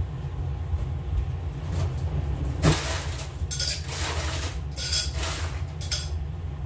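Ice cubes rattling and clinking into a drinking glass in several short bursts.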